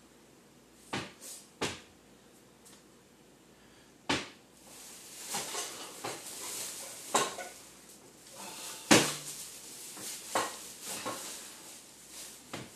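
Kitchen clatter: a few sharp knocks about a second in, then from about four seconds a busy run of knocks and rattles of cupboards, drawers and dishes being handled, the loudest bang about nine seconds in.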